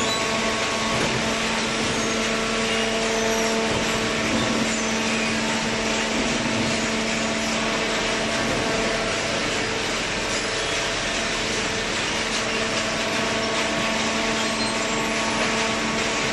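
Horizontal cardboard baler running: a steady machine hum with a broad hiss, unchanging throughout.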